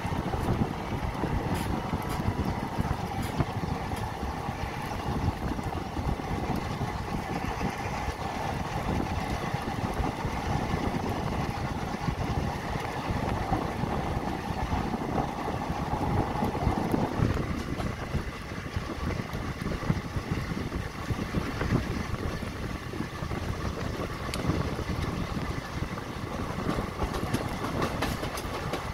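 Passenger express train rolling past on a curve, a steady rumble of coach wheels on the rails. A steady mid-pitched tone runs under it and cuts off about two-thirds of the way through.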